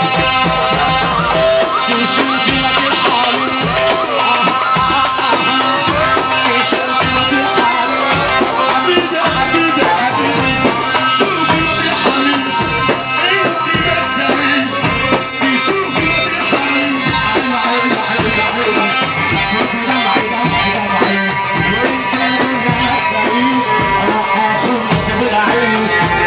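Live Egyptian shaabi wedding music in an instrumental passage: held, steady melody tones over a fast, even percussion beat with jingling hand percussion ticking in time.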